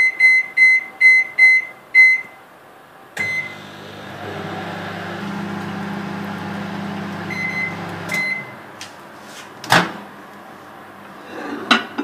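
Microwave oven being set: a quick run of keypad beeps for the cooking time, a click, then the oven running with a steady low hum for about five seconds. Two more beeps come and the hum cuts off, followed by a few sharp clicks and knocks, the loudest near the end, typical of the door latch.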